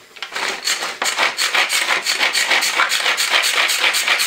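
Manual pull-cord mini chopper worked in quick repeated pulls, its blades spinning through onion and tomato with a fast, even rasping rhythm that starts about half a second in.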